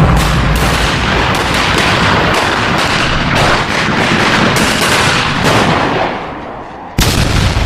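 Loud explosion and gunfire sound effects: a long rumbling blast full of rapid cracks that dies down, then another sudden blast just before the end.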